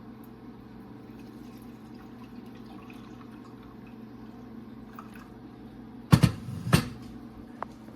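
A low steady hum, then two loud knocks close together about six seconds in and a small click shortly after.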